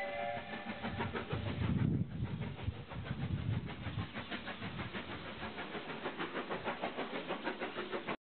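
WD Austerity 2-10-0 steam locomotive working a train, its exhaust beats in a steady rhythm, with the tail of a chime steam whistle at the very start. The sound cuts off suddenly near the end.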